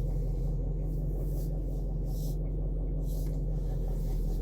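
Range Rover 4.4-litre TDV8 diesel V8 idling, heard from inside the cabin, with a faint clicking that repeats steadily over the engine hum. The clicking comes with reverse selected and the steering wheel released; mechanics suspect the gearbox.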